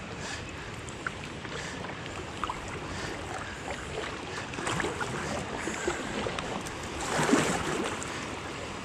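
Kayak running a swift river riffle: a steady rush of current around the hull, with small splashes and knocks from paddle strokes. The water noise swells louder for about a second around seven seconds in.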